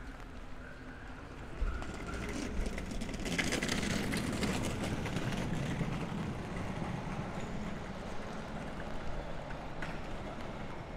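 Traffic passing on a wet street. A vehicle's tyre hiss and engine rumble swell to a peak about four seconds in, then ease back into a steady low hum of traffic, with a single dull thump shortly before.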